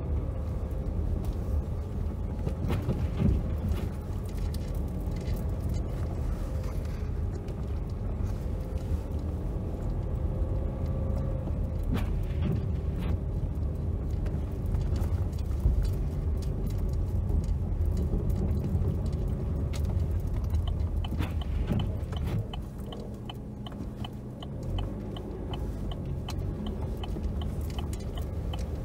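Steady low engine and tyre rumble inside a car's cabin as it drives on a snow-covered road. About two-thirds of the way through the car eases off, and a turn-signal indicator begins ticking about twice a second.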